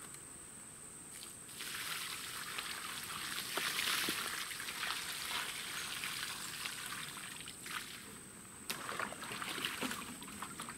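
Mineral-lick mix of Deer Co-Cain powder stirred into creek water, pouring out of a tipped plastic bucket onto the ground. The steady pour starts about two seconds in, breaks off briefly near the end, and picks up again.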